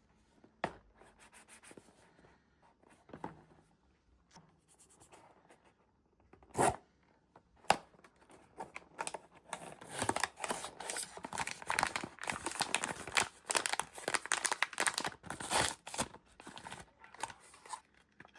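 Blind-box packaging being handled by hand: scattered taps and rustles, two sharp snaps, then a long run of tearing and crinkling as the wrapping is torn open, easing off near the end.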